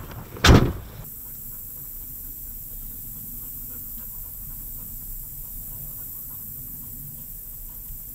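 One short, loud thud about half a second in, followed by a steady quiet outdoor background with faint scattered ticks.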